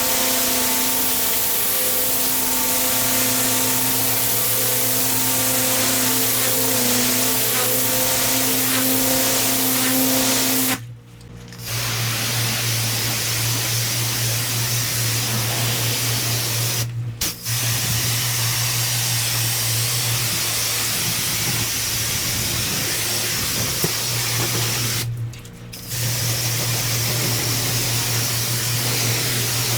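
Pressure washer jet spraying block paving: a steady hiss of water over the even hum of the machine's motor, breaking off briefly three times.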